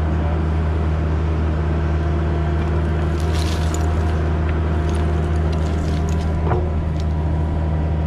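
Compact excavator's diesel engine running steadily at an even pitch as its bucket dumps a load of dirt, with a faint patter of falling soil and stones about three to four seconds in.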